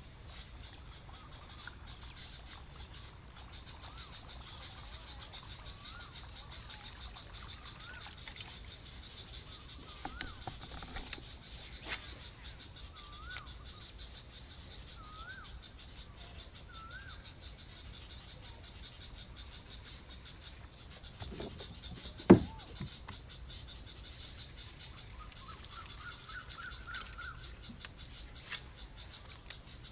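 Dense, steady ticking chorus of insects and frogs, with short chirping bird calls scattered through it. One sharp knock stands out a little past the middle.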